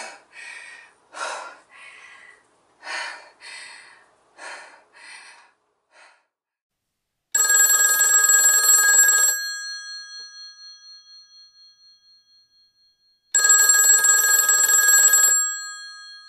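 Telephone bell ringing twice, each ring lasting about two seconds, with the metallic ring dying away slowly after the first.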